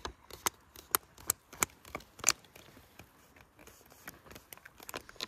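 Metal spoon stirring rehydrated lasagna inside a crinkly foil food pouch: a run of sharp clicks and crinkles, about two or three a second over the first two and a half seconds, then softer and sparser.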